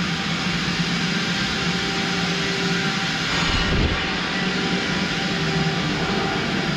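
Steady machinery drone with a low hum that fades in and out.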